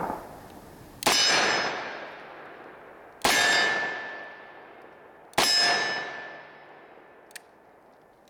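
Three shots from a Smith & Wesson 586 L-Comp .357 Magnum revolver, about two seconds apart. Each shot is followed by a long ringing decay.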